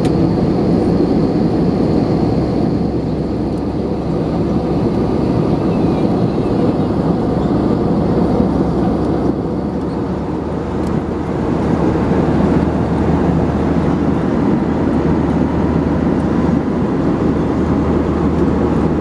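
Steady cabin noise inside an Airbus A321 airliner: the even rush of airflow and its CFM56 engines. A steady low hum joins about halfway through.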